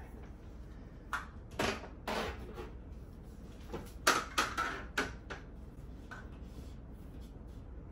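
A series of short scrapes and rustles, with the loudest cluster about four seconds in, as electrical cable is handled and pulled through a hole cut in a drywall ceiling.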